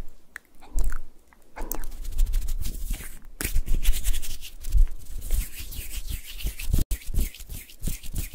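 Fingertips rubbing and scratching directly on the XY microphone capsule of a Zoom H6 recorder, as an ASMR ear massage. Dense crackly rubbing with a deep rumble and many small clicks, coming in waves with short pauses.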